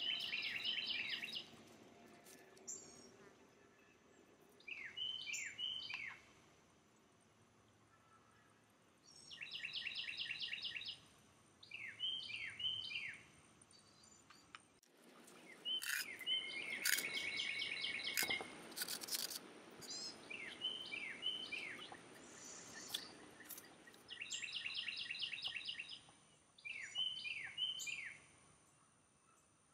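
A songbird singing: a rapid trill of short notes, then a few separate down-slurred notes, the two phrases alternating every few seconds.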